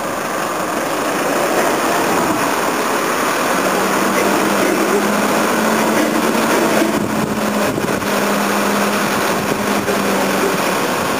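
Engine of an armoured 4x4 military vehicle running at low speed as it drives down a loading ramp, with a steady engine hum that comes in about a third of the way through.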